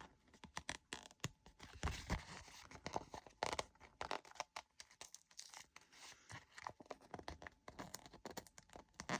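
Small plastic packets of diamond-painting drills being handled and sorted: on-and-off rustling and crinkling with light clicks and short peeling or tearing sounds.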